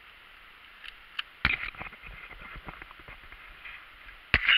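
Sharp clicks and knocks at irregular times, with softer clicking between. The loudest come about a second and a half in and again near the end.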